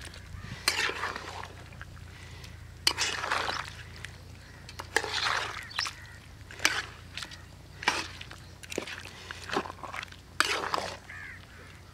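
Thick chicken curry simmering in a pot, with irregular wet plops and sloshes every second or two.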